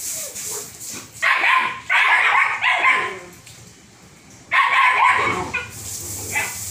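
German Shepherd dogs barking in several short bouts, about a second, two seconds and four and a half seconds in. A garden hose spray hisses at the start.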